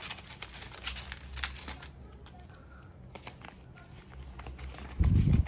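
Paper banknotes and clear plastic binder envelopes rustling and crinkling as they are handled, with scattered small clicks. A loud, dull thump comes about five seconds in and cuts off sharply.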